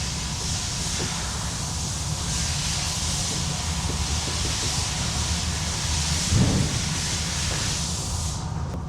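Steady hiss that cuts off sharply about eight seconds in, over a continuous low hum.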